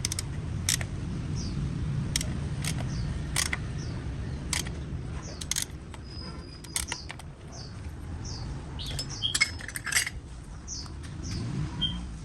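Scattered sharp metallic clinks and clicks, with a small bird chirping over and over in short falling notes and a low steady rumble underneath.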